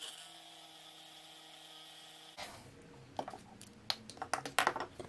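A small electric rotary tool with a ball drill bit runs with a steady hum; it is being used to cut a rusted pusher tube out of a watch case. It stops abruptly a little over two seconds in. A run of light clicks and taps follows, loudest near the end.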